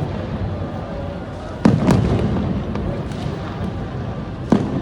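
Fireworks exploding overhead: two sharp bangs in quick succession about a second and a half in and a third near the end, with fainter pops between, over a steady low background din.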